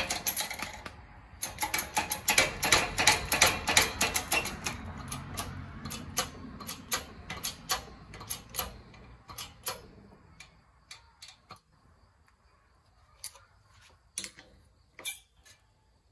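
Rapid light clicking and ticking, dense for the first several seconds and thinning to scattered single clicks after about ten seconds.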